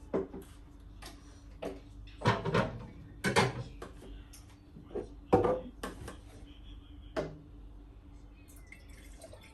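Knocks and clatters of food containers and bottles being moved and set down on fridge shelves, about five separate knocks in the first few seconds, over a faint steady hum.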